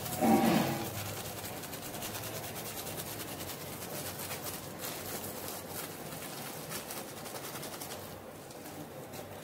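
Foil spice packet crinkling in the hand as masala powder is sprinkled from it, a steady run of small crackles. A brief low voice-like sound comes about half a second in.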